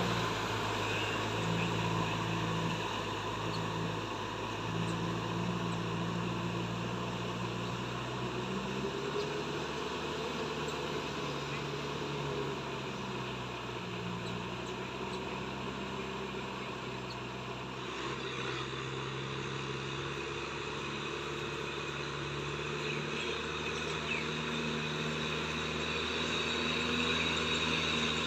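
Kubota M6040SU tractor's four-cylinder diesel engine running steadily under load while pulling a rotavator through deep mud, its note shifting slightly a few times.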